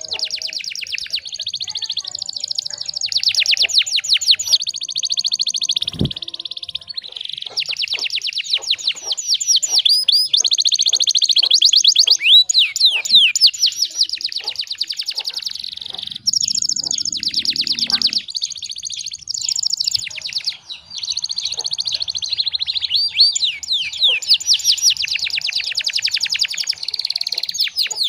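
Domestic canary singing a long, almost unbroken song of fast trills and rolls of rapid repeated high notes, changing from one phrase to the next every second or two.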